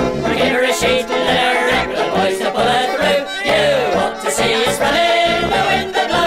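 Nightcore edit, sped up and pitched up, of an English folk band's sea song, playing a stretch with no sung words over a steady beat.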